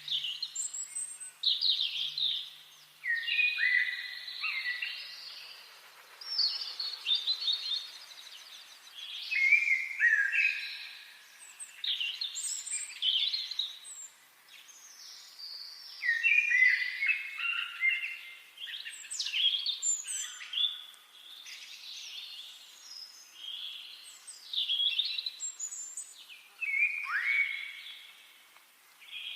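Several songbirds singing in woodland, their short whistled and trilled phrases overlapping, coming in loud spells every few seconds.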